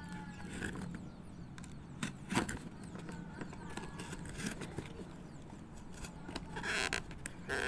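Snap-off utility knife blade cutting through packing tape and wrapping on a cardboard box: a few sharp clicks and scratches, with a longer scratchy cut near the end, over a steady low hum.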